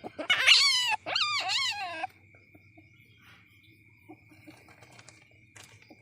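Young civet calling: two loud, wavering, whining cries of about a second each, one straight after the other, the second sliding down in pitch as it ends. After them only faint scattered clicks remain.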